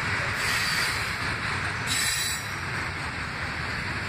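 Freight train cars rolling past: a steady rumble and rush of steel wheels on the rails, with brief sharper hissing rises about half a second and two seconds in.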